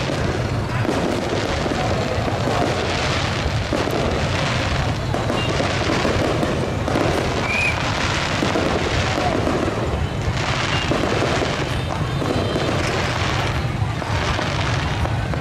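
Fireworks going off again and again over the continuous noise of a large crowd, with music playing.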